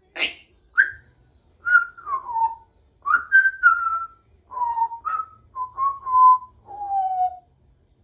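Congo African grey parrot whistling a string of about a dozen short whistled notes, several sliding down in pitch, ending on a longer falling note. A short harsh burst comes right at the start.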